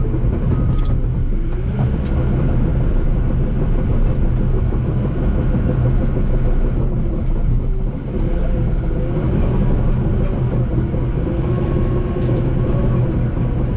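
Crawler bulldozer's diesel engine running steadily under load while pushing brush, with a constant low drone whose pitch rises and falls a little.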